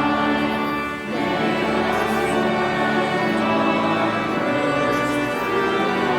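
Music of sustained, held chords, changing about a second in.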